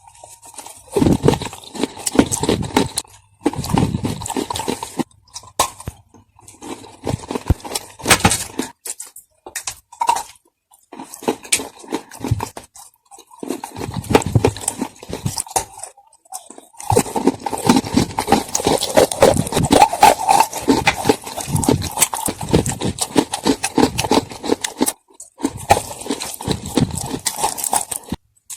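Close-up crunching and chewing of dry edible clay chunks, loud crackly bites coming in bursts with short pauses between them.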